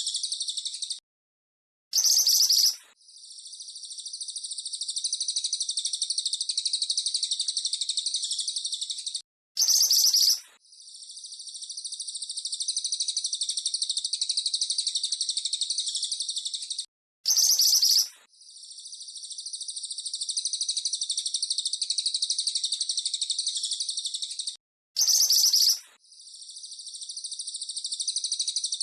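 Recorded songbird chattering, a fast, high-pitched rattle ('crecetan') that runs on steadily. About every eight seconds it breaks off, a short loud call sounds for about a second, and the chatter fades back in, in a repeating loop.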